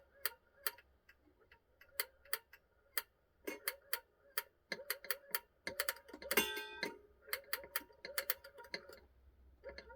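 Movement of a 1970s Seiko day-date clock ticking and clicking unevenly. A brief squeaky tone comes about six seconds in.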